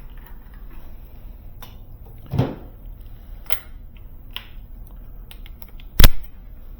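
Door-closer hardware and hand tools being handled against a hollow metal door: scattered light metallic clicks, a duller knock about two and a half seconds in, and one sharp loud knock about six seconds in.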